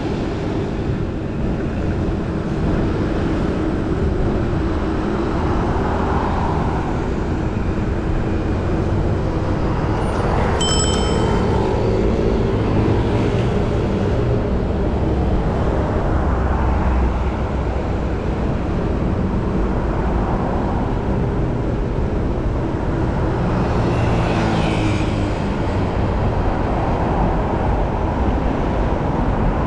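Steady rumble of heavy city road traffic heard from a moving electric scooter, with wind noise on the microphone. A short high beep sounds about ten seconds in, and a brief hiss comes near the end.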